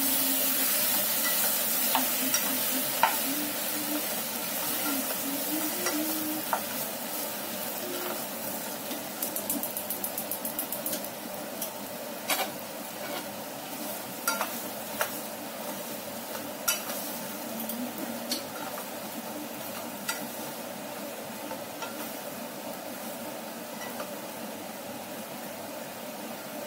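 Chopped tomatoes sizzling in a ceramic-coated saucepan while a wooden spatula stirs them, knocking and scraping against the pan now and then, with a quick run of taps about ten seconds in. The sizzle gradually dies down.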